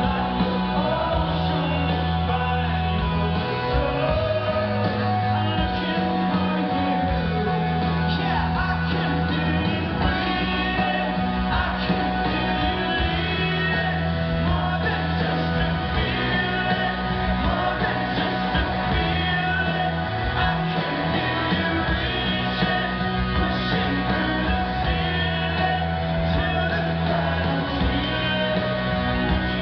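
Live rock band playing, with a male lead singer singing into a microphone over guitars, bass and drums, heard from within the audience in a large concert hall.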